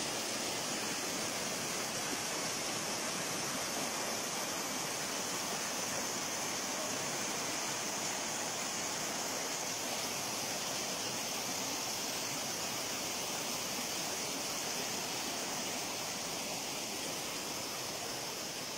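Steady rush of a waterfall and the stream below it, falling water pouring over rocks without a break.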